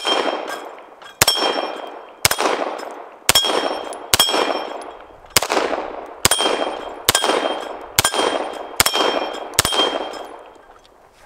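Beretta 92X Performance 9mm pistol fired eleven times at a steady pace of about one shot a second. Each shot is followed by the clear ring of a steel plate target being hit.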